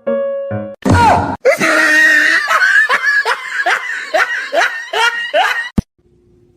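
A short run of musical notes, then loud, high-pitched laughter in a rapid string of falling bursts for about five seconds, cut off abruptly with a click near the end.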